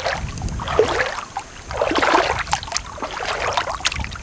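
Bare feet wading in shallow lake water, splashing and sloshing in a few irregular bursts as they step and rinse.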